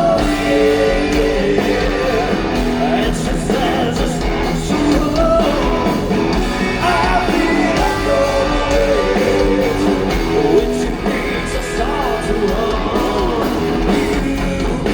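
Rock band playing live, with a singer's voice carried over the band at a steady, loud level.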